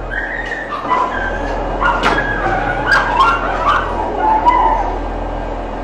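Dogs whimpering and yelping in distress, overlapping high-pitched whines that rise and fall, with a few sharp knocks among them.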